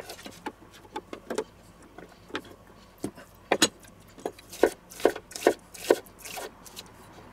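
Chef's knife slicing a red onion into rings on a wooden cutting board: a series of sharp knocks of the blade on the board at uneven spacing, coming faster and louder in the second half.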